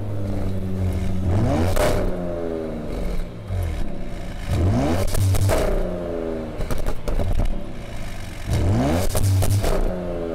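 2020 Audi S6's 2.9-litre twin-turbo V6 heard at its quad exhaust tips, revved three times while standing: each time the pitch sweeps up quickly and falls back to idle. A few sharp crackles come from the exhaust around the revs.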